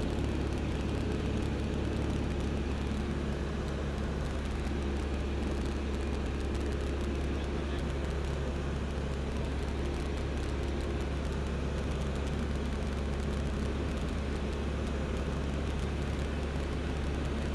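L-13 Vivat motor glider's engine and propeller droning steadily in cruise flight, heard from inside the cockpit as a constant low hum.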